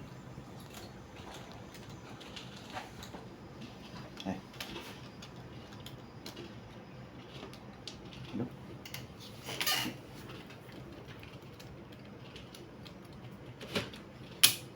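Scattered small clicks and taps of plastic and metal from handling an opened laptop during a RAM upgrade, with a short clatter about ten seconds in and a sharp snap just before the end.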